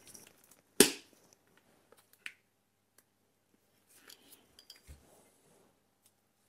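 Hand cutters snapping through thick orange high-voltage battery cable with one sharp, loud snap about a second in, followed by a few faint clicks and tool handling.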